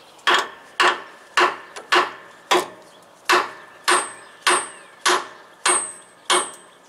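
Copper-faced hammer with a steel head striking a seized bolt on a truck's torsion bar mount, about a dozen steady blows a little under two a second, the later ones with a faint high ring. The bolt is not yet budging.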